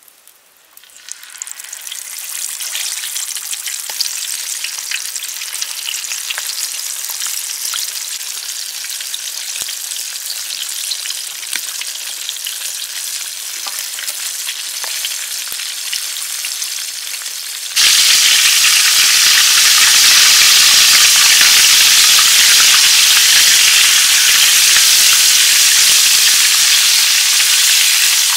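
Batter-coated chicken legs deep-frying in hot oil in a large wok: a steady sizzle with frequent small crackles, building up over the first couple of seconds as the legs go into the oil. About two-thirds of the way through it suddenly becomes much louder and denser.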